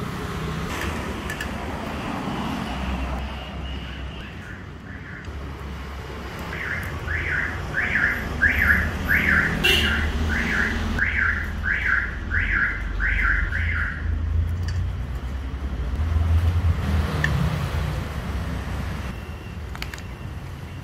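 Road traffic rumbling steadily, with an electronic alarm chirping over and over, about twice a second, for several seconds in the middle.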